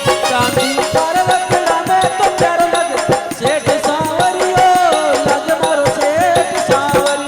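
Rajasthani folk devotional music (bhajan): quick, dense percussion under a wavering melody line.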